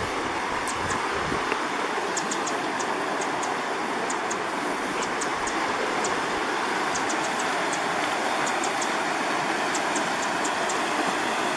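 Steady rush of a creek's white water below the trail, with runs of short, high-pitched chirps over it.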